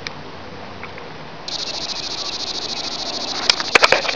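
An insect starts a high, steady, fast-pulsing buzz about a second and a half in. Near the end there is a short cluster of sharp clicks.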